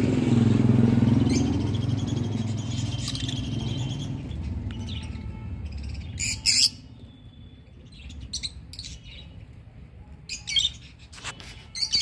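Caged peach-faced lovebirds giving short, shrill chirps, mostly in pairs, starting about halfway through. Before that, a low rumble fades away over the first few seconds.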